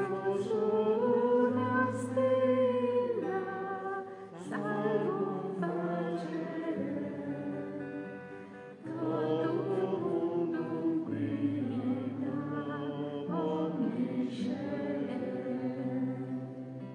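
A choir singing a slow hymn in long held phrases of about four seconds each, with short breaks between them, over steady low notes.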